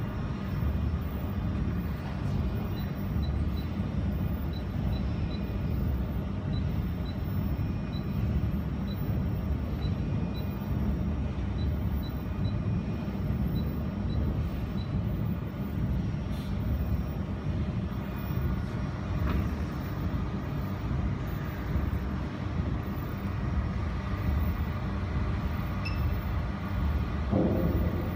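Steady low machinery rumble. Over it come faint short high beeps, about twice a second for some twelve seconds, as the laser welder's touchscreen buttons are tapped. A brief knock comes near the end.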